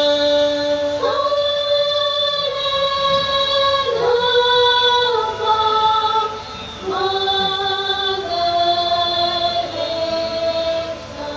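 Show soundtrack music: a female voice singing long held notes, sliding up into a new note every few seconds.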